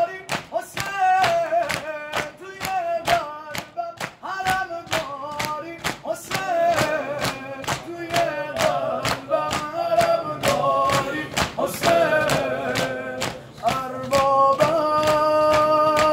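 A man singing a Shia mourning lament (noha) unaccompanied, his voice wavering and ornamented, over a steady rhythm of sharp slaps from mourners beating their chests. Near the end he holds a long note.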